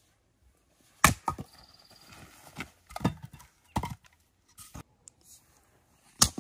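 Axe splitting firewood: a series of sharp woody cracks and knocks, irregularly spaced about a second apart, the loudest about a second in. Split logs knock together as they are handled.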